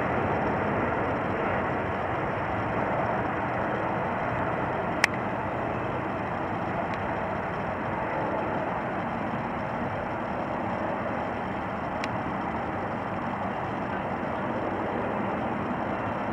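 Steady jet roar of an Airbus A330-243's Rolls-Royce Trent 700 engines on approach with the landing gear down, fading slowly as the airliner moves away. A single sharp click about five seconds in.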